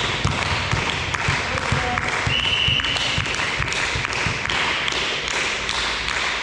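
Indoor volleyball play: a run of short thuds from the ball and players' feet on the court over a steady din from the hall, with a brief high tone about two and a half seconds in.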